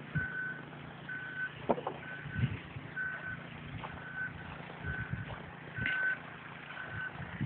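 A plow truck's reversing alarm beeping, about one single-pitch beep a second, over a faint low engine hum. A few short thuds sound in between.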